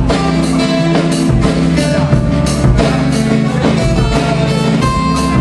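Acoustic guitar and drum kit playing together live, a blues-rock duo with steady drum strikes under the guitar.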